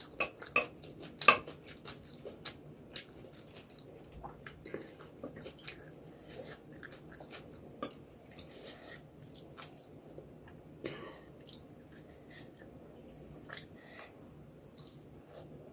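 A metal spoon clinking against a glass bowl of egg curry, with several sharp clinks in the first second and a half. After that come quieter wet chewing and mouth sounds, with small clicks, as she eats rice and curry by hand.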